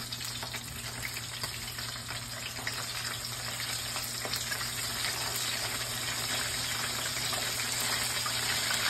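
Breaded chicken tenders frying in canola oil in a cast-iron skillet: a steady sizzle with fine crackling that slowly grows louder.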